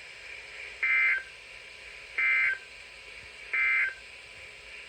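Emergency Alert System SAME digital data signal: three short bursts of data tones, each under half a second, spaced about a second and a half apart. This is the end-of-message code that closes the warning broadcast.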